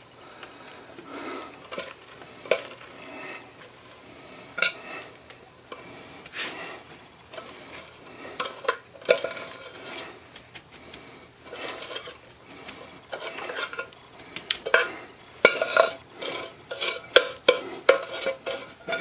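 A metal saucepan clinking and scraping against a metal pizza pan as sticky peanut-butter-coated cornflakes are tipped and scraped out of it. There are scattered sharp clinks over a soft rustle, and the clinks come thicker in the second half.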